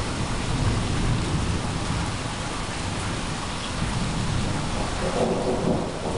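Rain falling steadily over a low, rolling rumble of thunder.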